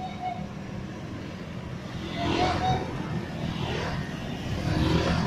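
Motorcycle and scooter engines passing close by one after another, the sound swelling as riders go past about two seconds in and again near the end.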